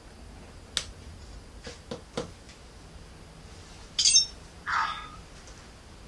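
Iron Man Mark 50 prop helmet being handled: a few small clicks and knocks as it is set down and switched on. About four seconds in, its built-in sound effects start with a short, bright electronic burst, followed by a brief chirp, as its eye lights come on.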